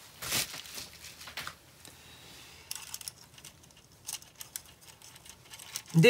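Plastic scale-model panel and its loose bundle of thin wires being handled: soft rustling with scattered light plastic clicks, a little louder at the very start.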